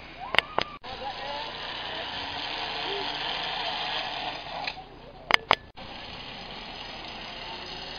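Steady outdoor background noise with faint, indistinct voices. It is broken twice, near the start and about five seconds in, by a pair of sharp clicks followed by a brief dropout, where the home-video clips are joined.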